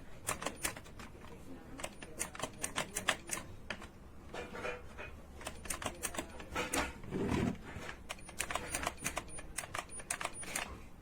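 An irregular run of sharp clicks and taps, several a second, with a duller thud about seven seconds in.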